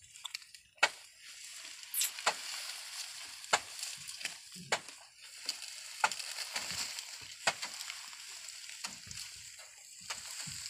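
Dry cut sugarcane stalks and leaves rustling and crackling as bundles are handled and tossed onto a loaded truck. Irregular sharp knocks of cane striking cane come every second or so.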